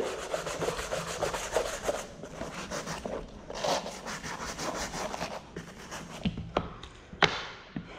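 A stiff hand brush scrubbing the canvas side of a slip-on Vans shoe in rapid back-and-forth strokes. A few sharp knocks come near the end.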